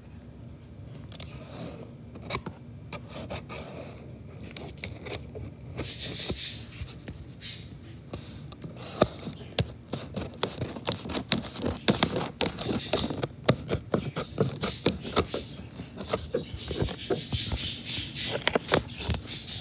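Cardboard box and plastic packaging being opened by hand, with scraping, rustling and crinkling and many small clicks and knocks. A hissy burst of tearing or crinkling comes about six seconds in, and the handling grows busier toward the end.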